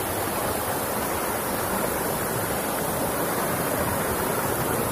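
Shallow, rocky river running over stones: a steady rush of water.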